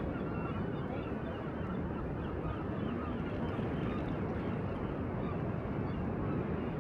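Steady wind and sea noise, with many short bird calls scattered through it.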